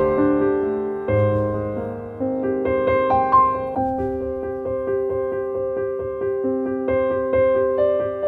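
Background piano music: unhurried notes, each struck and left to fade, over held chords.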